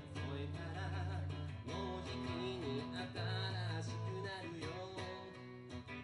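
Live band music: a semi-acoustic guitar playing over held bass notes and drums, an instrumental passage of a pop-rock song.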